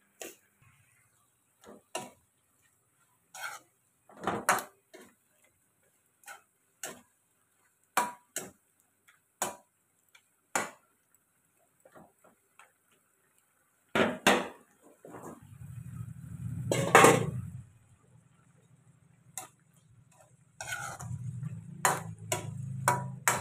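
Cooking in a wok: chicken simmering in bubbling liquid, with scattered sharp clicks and taps of a metal spoon against the pan about once a second. A low steady hum comes in a little past halfway, with one louder clatter soon after.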